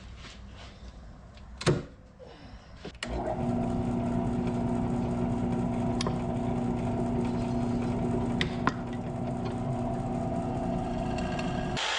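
A few clicks and knocks, then about three seconds in a motor starts and runs with a steady hum before cutting off suddenly near the end.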